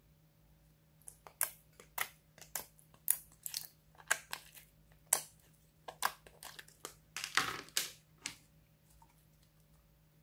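Clear slime with confetti being pressed and squeezed out of plastic compartments, giving an irregular string of sharp clicks and popping crackles, with a denser burst of crackling near the end before it goes quiet.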